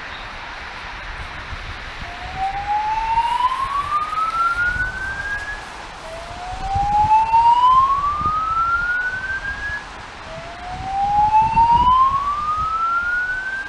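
Fire alarm speakers sounding a whoop tone: three slow upward sweeps, each a few seconds long, the first starting about two seconds in.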